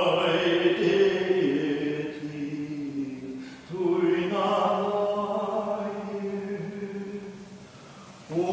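Male choir singing a cappella in slow, held chords: one phrase, a short break about three and a half seconds in, then a second phrase that fades near the end.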